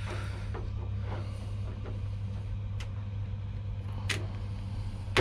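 A few light clicks and knocks of small metal and plastic door-lock parts being handled and fitted, over a steady low hum.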